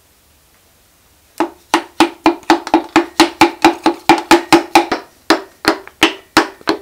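Wooden hammer handle tapping on a piston crown, driving the piston through a ring compressor into a cylinder of a Renault 1.9 dCi diesel block. A rapid, even series of light knocks, about five a second, starts about a second and a half in.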